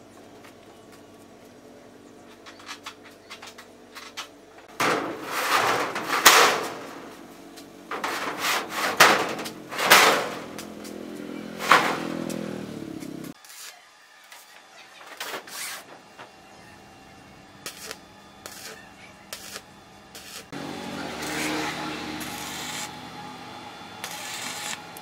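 A large steel sheet being pushed across the metal floor of a truck's cargo bed, scraping loudly in a series of strokes under a second long. Near the end comes a steadier crackling hiss of arc welding.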